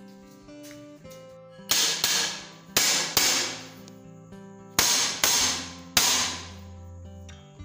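Six hammer blows on a steel window grill, each hit sharp and ringing briefly, over background guitar music.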